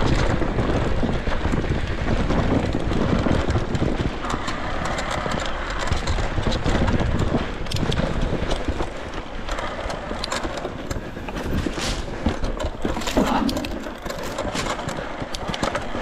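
Electric mountain bike riding along a trail: a steady rushing noise of tyres and air, with the bike rattling and clicking over bumps, the sharp clicks more frequent in the second half.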